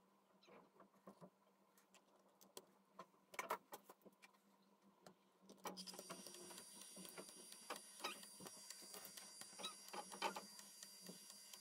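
Faint scattered clicks and taps of hands handling an opened Sony Walkman's plastic casing and circuit board and plugging a cable jack into it. About halfway through, a steady hiss with a thin high whine comes in under the clicks.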